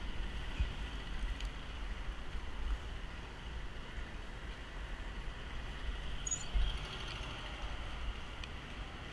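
Steady outdoor background noise with a low rumble, and a short high chirp about six seconds in.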